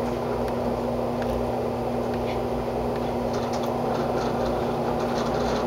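Steady droning hum of an indoor shooting range's ventilation, with one constant tone running through it and a few faint clicks; no shot is fired.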